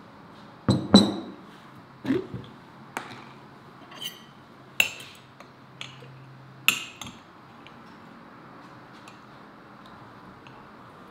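A large glass jar of liquid set down on a wooden table with a heavy thud, then a metal spoon clinking against the glass inside the jar about six times as the contents are stirred.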